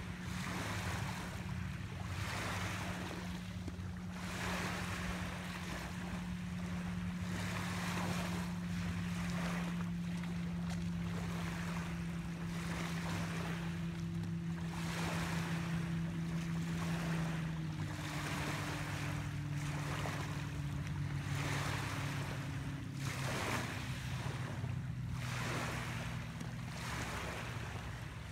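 Small waves washing against the shore every second or two, over the low steady hum of a boat engine out on the lake, whose pitch drops about two-thirds of the way through.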